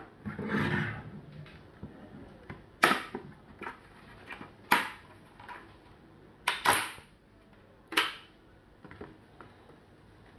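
Plastic snap-fit clips of a Huawei B622 router's casing cracking loose one after another as the case is pried apart with a thin metal tool: a run of sharp clicks, about seven, with a short scrape near the start.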